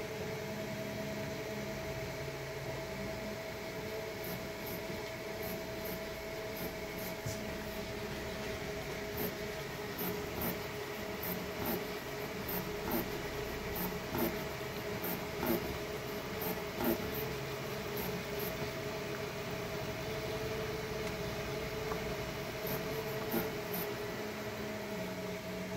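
FDM 3D printer running mid-print: a steady fan hum with stepper motors whining underneath, their pitch shifting as the print head moves, and short faint ticks through the middle stretch.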